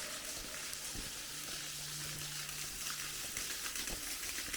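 Water pouring and splashing down inside a train tunnel, a steady rain-like hiss, with a few soft knocks.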